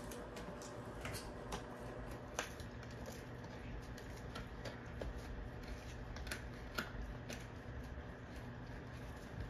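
Belgian Malinois gnawing on a hard chew bone: irregular sharp clicks and cracks of teeth on bone, about ten in all, spaced unevenly over a faint low hum.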